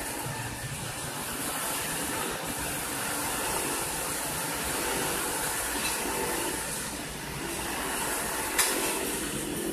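Asphalt paver's diesel engine running steadily while a van and a motorcycle drive past on the wet road, their tyres hissing. One sharp click near the end.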